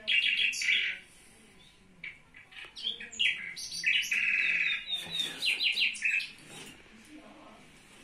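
Small-bird chirps and fast chattering trills in bursts, in the first second and again from about two to six seconds in: bird sounds playing from a phone and a pet budgerigar reacting to them.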